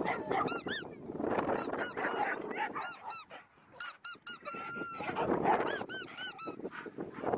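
Rubber squeaky dog toy squeezed over and over, in quick runs of two to four high squeaks with short pauses between the runs.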